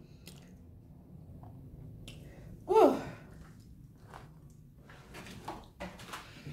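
Faint chewing and wet mouth clicks of a person eating a boiled egg, with one short vocal sound that falls in pitch about three seconds in.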